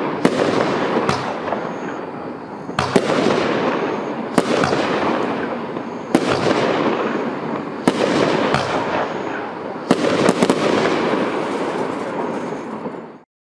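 A 16-shot consumer fireworks cake firing shot after shot. There is a sharp bang every second or two, each followed by a long hissing wash, and three bangs come in quick succession about ten seconds in. The sound cuts off suddenly near the end.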